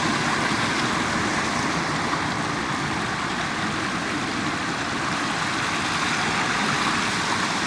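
River water rushing steadily over rocks in a stream channel, a constant even rush with no breaks.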